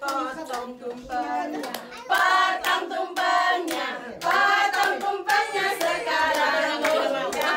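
A small group of women and children singing an Indonesian birthday song together and clapping along in rhythm; the singing gets louder about two seconds in.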